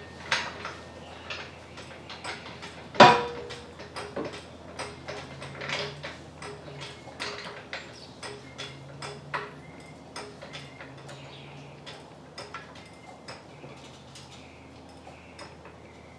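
Hand tools clicking and clinking during mechanical work, with scattered irregular light metallic knocks and one loud clank about three seconds in.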